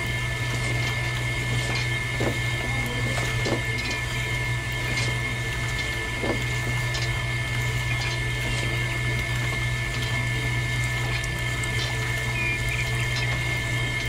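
Miniature juice-pressing machine running steadily with a constant hum while juice trickles from its spouts into small buckets; a few soft knocks as fruit goes into its hopper.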